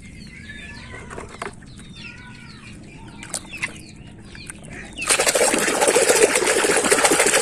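A hand splashing and churning water in a tub, loud and continuous from about five seconds in. Before that there are faint bird calls and a few light clicks of plastic toys being handled.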